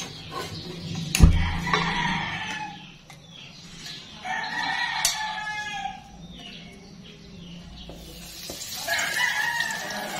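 A rooster crowing three times, each crow a long held call, with a single sharp knock about a second in.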